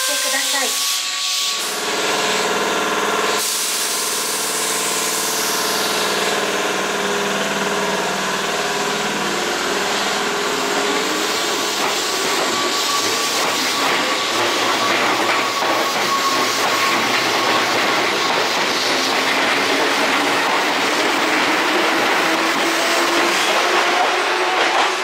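Keihan Railway electric train running at the platform: steel wheels rumbling on the rails under a steady, slowly shifting motor whine. A hiss sounds at the start and ends sharply about three seconds in.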